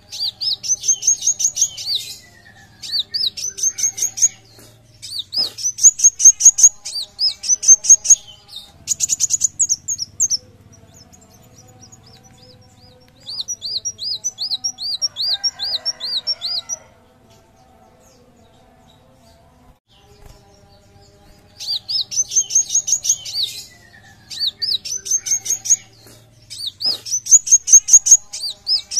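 Male kolibri wulung sunbird singing: repeated phrases of quick, high, rising chirps, each phrase about one to two seconds long. A softer run of rising notes comes near the middle, then a pause of a few seconds before the phrases start again.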